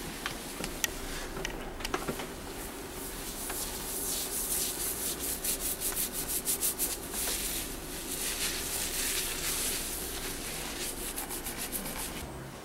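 Hands scrubbing and rubbing through wet, shampoo-lathered curly hair: a hissing rub that swells in the middle into quick, rhythmic strokes, with a few small clicks in the first two seconds.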